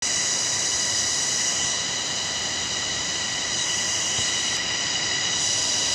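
Steady, high-pitched drone of a cicada chorus: an even buzz with a ladder of overtones over a constant hiss.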